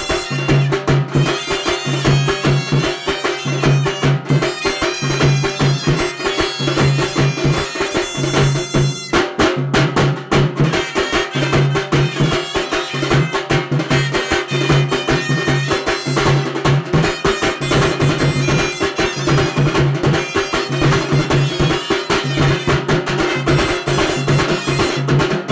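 A small brass band playing: two trumpets carry the melody over a steady beat from a large bass drum and side drums played with sticks. The trumpets break off briefly about nine seconds in while the drums keep going.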